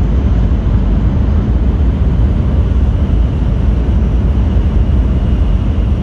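Series N700S Shinkansen running, heard from inside the passenger car: a loud, steady low rumble with no break or change.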